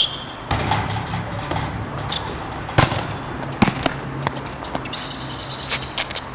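Basketball hitting a metal rim with a sharp clank and a short ring. Then come a few separate thuds of the ball on the court, and a brief high chirping about five seconds in.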